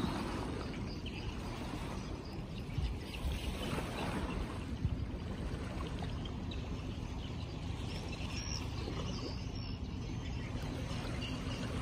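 Steady riverside ambience: water noise over a low rumble, with a few faint bird chirps about eight to nine seconds in.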